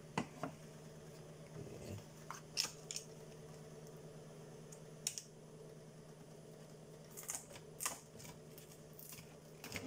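Scattered clicks and snaps of the plastic back cover of a Changhong LED TV as it is pried and pulled off its clips, about a dozen irregular clicks, over a faint steady hum.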